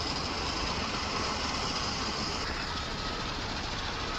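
Steady engine and machinery noise with no distinct strokes, joined about two and a half seconds in by a faint steady high whine.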